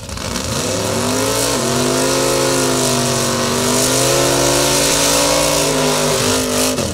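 Drag car doing a burnout: its engine held at high revs while the rear tyres spin and smoke, with a loud hiss over the engine note. The revs climb about a second and a half in, hold steady, then drop near the end.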